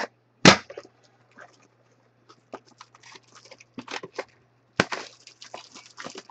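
Shrink-wrap being cut and pulled off a cardboard trading card box: plastic crinkling and rustling with scattered clicks, a sharp knock about half a second in and another just before five seconds.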